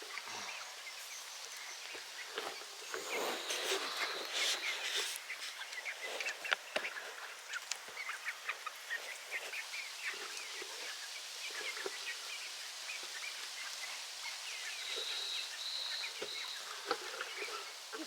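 A flock of chickens clucking softly as they mill about, with many short, scattered calls, and a brief thin high tone near the end.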